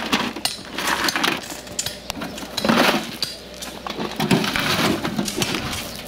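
Gravel crunching and stones clattering against a galvanized metal tub and buckets, with scattered clinks and a louder rattle about three seconds in.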